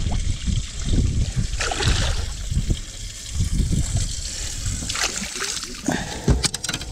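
A hooked fish splashing and thrashing at the water's surface beside the boat as it is reeled in, with two louder splashes.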